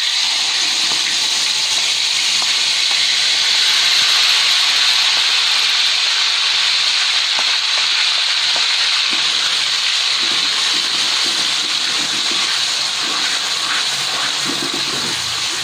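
Ground chili-and-spice paste sizzling loudly in hot oil in a wok, a steady hiss as the paste is sautéed until cooked, with light scrapes of a plastic spatula stirring it now and then.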